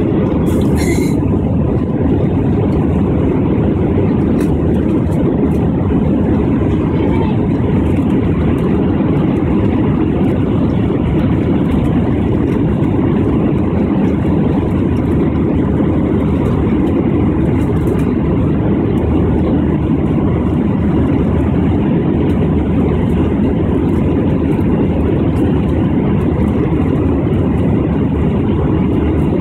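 Steady, loud cabin noise of a jet airliner climbing after takeoff: engine and airflow noise heard from inside the passenger cabin, mostly low rumble. A brief high-pitched sound comes about a second in.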